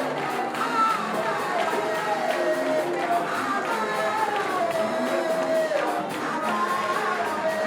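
Church worship music: singing with held, gliding melody lines over instruments and a steady percussion beat, with a congregation joining in.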